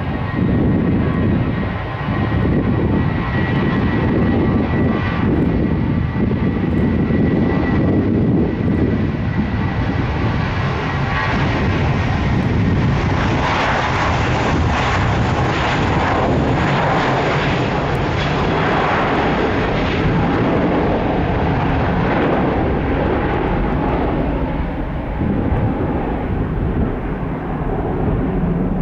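Jet airliner's engines running loud and steady, a dense rush with a faint high whine over the first several seconds.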